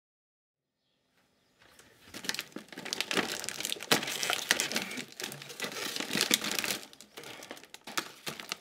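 Plastic shrink-wrap on a six-pack of 2-litre water bottles crinkling and crackling as it is pulled at, with many sharp cracks, as someone struggles to tear it open. It starts about a second and a half in.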